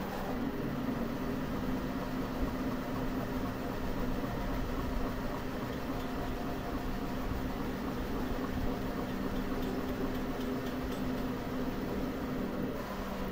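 Bambu Lab 3D printer running, a steady mechanical hum of its motors and fans with a few steady low tones underneath.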